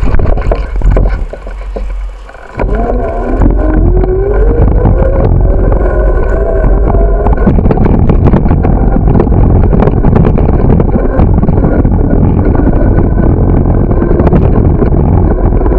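Loud, steady rumble of wind buffeting a bicycle-mounted camera's microphone, with road noise as the bicycle rides along a city street. It dips briefly about a second in, then comes back loud. A whine rises in pitch between about three and seven seconds in.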